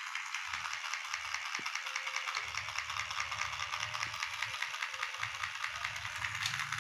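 Small electric motor and plastic gears of a battery-powered toy train whirring steadily with a fast rattling tick. From about two seconds in there are low knocks and rumble as the toy is handled on the floor.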